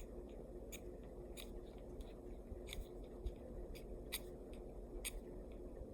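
Short, crisp strokes of a Swiss Army knife blade, about six of them at uneven spacing, over a faint steady hum.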